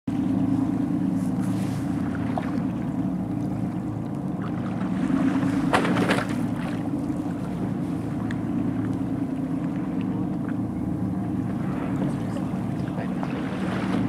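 Boat engine running with a steady low hum, mixed with wind and water noise against the hull. A brief louder rush comes about six seconds in.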